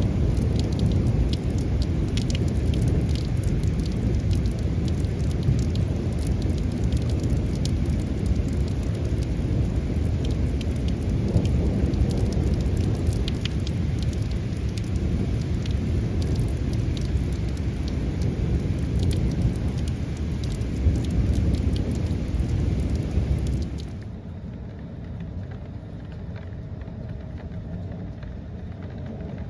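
Heavy thunderstorm rain pouring, with close raindrops ticking and a low rumble of thunder underneath. About 24 seconds in the sound drops suddenly to a softer, duller rain.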